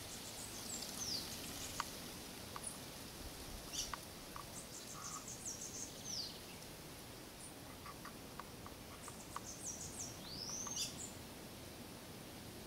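Birds calling: high, thin chirps and slurred whistles, some falling and one rising near the end, with a couple of quick runs of notes, over a steady outdoor background hiss.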